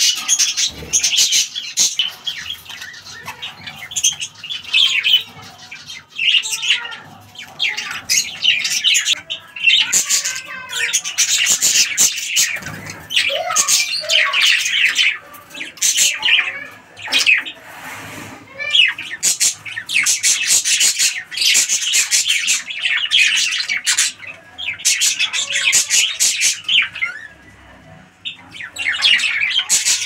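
Budgerigars chattering and chirping in quick, high-pitched bursts, with a few short lulls between them.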